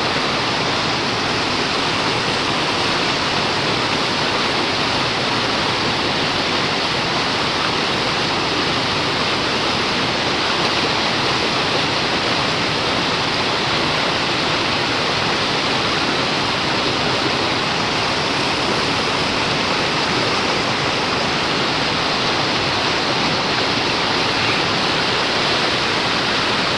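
Manavgat Waterfall: water falling and rushing in a steady, loud roar that holds without change throughout.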